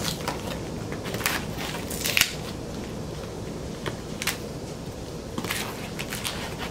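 Scissors cutting through packing tape on a cardboard record mailer, with the cardboard being handled: a scatter of short, sharp snips and crackles, the loudest about two seconds in.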